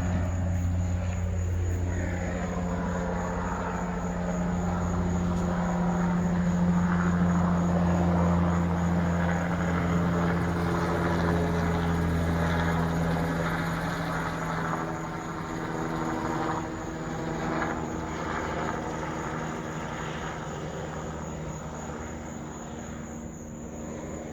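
Helicopter flying over, a steady low drone that swells through the first half and fades away over the last several seconds. The owner takes it for an air ambulance that had been on the ground near the hospital and is now flying off.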